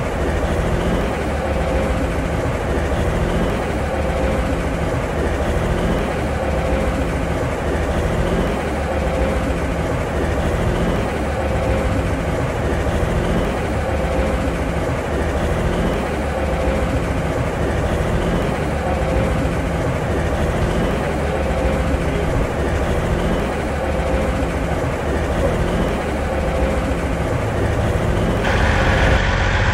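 Heavy diesel truck engine idling steadily, an even low rumble.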